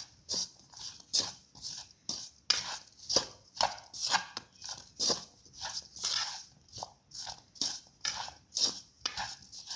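A spoon stirring sliced okra and chickpea flour in a bowl: rhythmic scraping swishes, about two strokes a second, as the mix is stirred to coat the okra.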